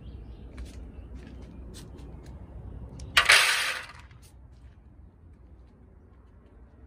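Dry cat kibble rattling against a disposable aluminium foil tray in one loud clatter lasting a little under a second, with a few light clicks and taps before it.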